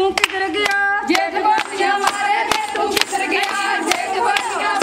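A group of women singing a Punjabi boli together in folk style, with steady hand clapping at about three to four claps a second keeping the beat.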